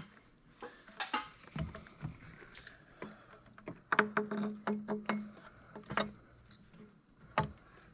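Scattered light clicks and knocks of hands fitting a silicone upper radiator hose and its billet adapter in an engine bay, with a cluster of them about four seconds in.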